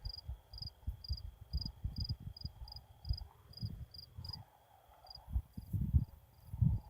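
Crickets chirping in a steady rhythm, about two to three short high chirps a second, over a faint constant high insect drone, with irregular low rumbling thumps.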